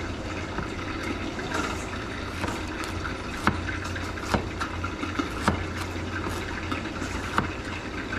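Chef's knife chopping ginger on a plastic cutting board: several sharp knocks of the blade on the board at uneven intervals, mostly in the second half, over a steady background hiss and low hum.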